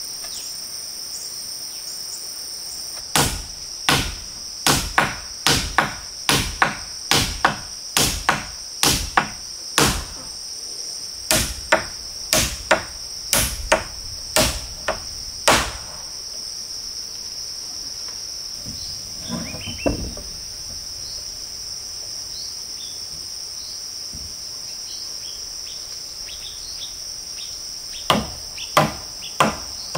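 Steady high-pitched insect chirring, with a run of about twenty sharp tool strikes, roughly two a second, from about three seconds in. After a pause with a brief scrape, the strikes start again near the end.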